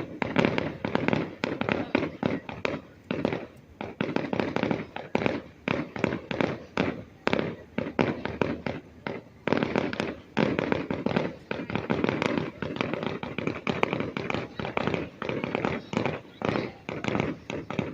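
Fireworks going off in a rapid, continuous barrage of sharp bangs and crackles, several bursts a second.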